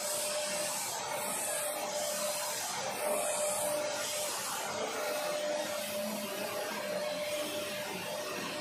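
Upright stick vacuum cleaner running steadily, a constant motor whine over the rush of suction as its nozzle is pushed over artificial grass.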